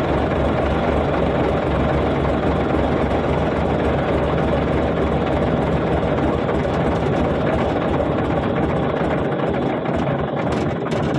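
Komatsu bulldozer's diesel engine running steadily at idle.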